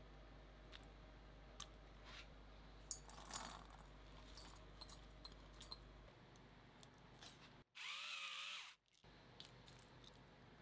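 Quiet kitchen handling sounds as ingredients go into a stainless steel mixing bowl: scattered faint taps and clicks and a brief rustle. About eight seconds in comes a louder, roughly one-second squeaky sound with a wavering pitch over a hiss.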